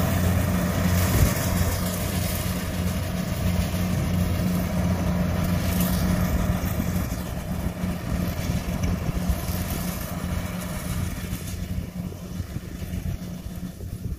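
Engine of a compact rice combine harvester running steadily under load as it cuts rice, a low hum under a broad rush. The sound grows fainter over the last few seconds as the machine moves off.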